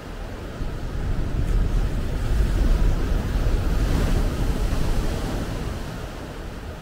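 Ocean wave breaking on a sandy beach and washing up the shore, swelling to its loudest about two to four seconds in and then fading, with a low wind rumble on the microphone.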